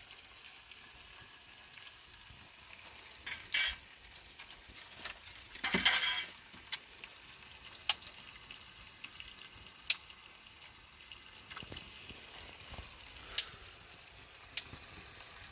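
Food frying in a pan with a steady sizzle. A utensil clicks and scrapes against the pan every few seconds, loudest about six seconds in.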